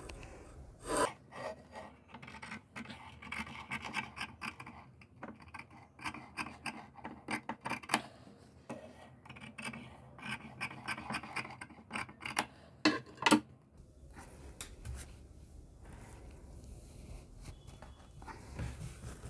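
Large tailor's scissors cutting out a paper collar pattern: a long run of snips and blades rasping through the paper, quieter near the end.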